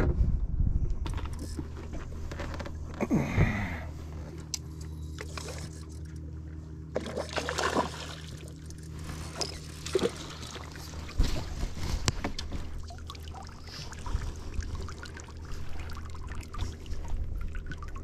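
Boat motor idling steadily, with scattered knocks and clatter of handling on the boat and water sloshing and trickling at the hull.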